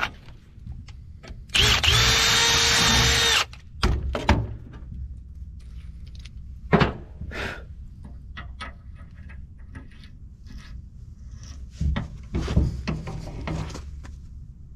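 Power drill running for about two seconds at a steady pitch, followed by scattered metal clanks and knocks as the parts are handled.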